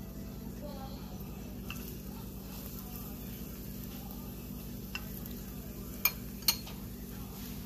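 Battered zucchini slices sizzling faintly as they pan-fry in oil, over a steady low hum. Metal chopsticks move the slices, with two sharp clicks against the pan a little after six seconds.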